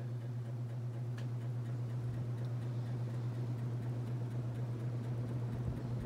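Hunter Original ceiling fan's oil-bath motor running with a steady low electrical buzz. The buzz is a little worse than it should be because the fan hangs without its usual bushing, and the motor is running without oil.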